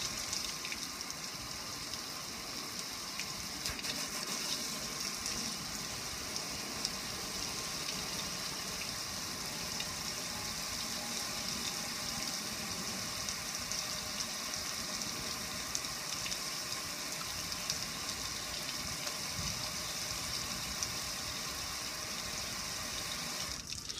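Water splashing steadily over a metal gas grill, spattering on the lid and streaming off the control panel in a continuous hiss. It cuts off sharply just before the end.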